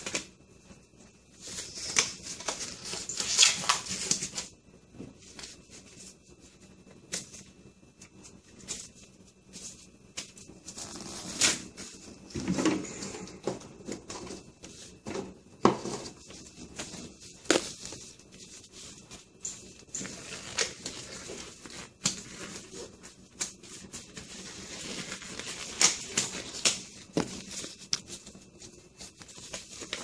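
Intermittent handling sounds: scattered sharp clicks and light knocks with patches of rustling, irregular and without any steady rhythm.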